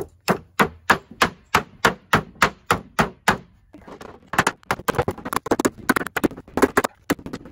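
Hammer tapping along the edge of a sheet-metal door sill pan to fold it over: steady blows about three a second, then after a short pause a quicker run of taps.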